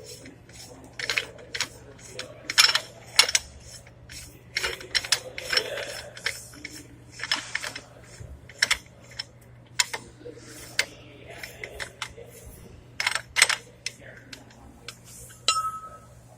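Steel parts of a wheel hub assembly clicking and clinking as the nut is worked onto the spindle and the bearing pushed back: irregular sharp metal clicks and knocks.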